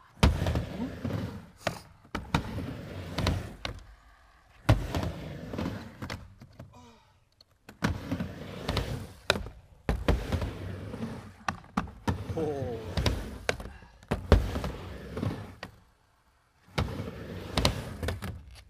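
Skateboard riding a miniramp: wheels rumbling across the ramp surface, broken by sharp clacks and knocks as the tail and trucks hit the deck and coping. Several short runs, with brief quiet breaks between them.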